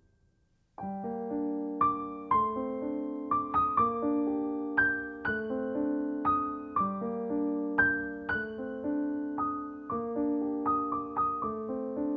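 Background music: a gentle piano melody over held chords, starting about a second in after a brief near silence.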